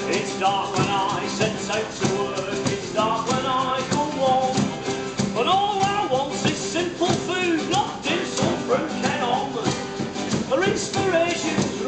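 Live band music: an acoustic guitar strummed in a steady rhythm, with voices over it between sung verses.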